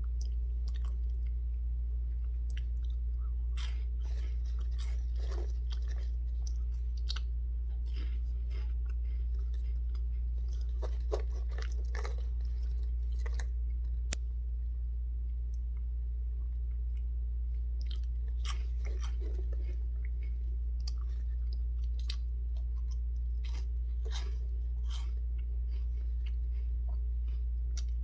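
Close-up crunching and chewing of cheese puffs, coming in several bouts of crisp crackles, over a steady low hum.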